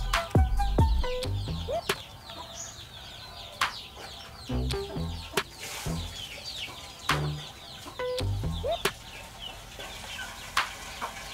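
Chickens clucking and chicks cheeping over background music with a low bass line, and a few sharp clicks here and there.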